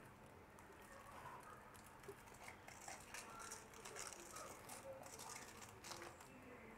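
Faint crinkling and rustling of aluminium foil as hands fold and twist it around a rolled flatbread wrap, with a cluster of small crackles in the middle stretch.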